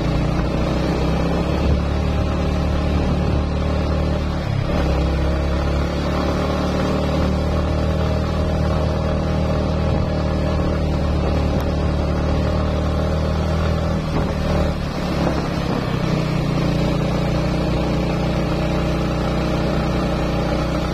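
Motorcycle engine running steadily as it climbs a slope, its note briefly breaking about four and a half seconds in and again near fifteen seconds.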